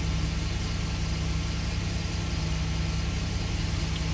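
Pontiac Aztek's 3.4-litre V6 engine idling steadily.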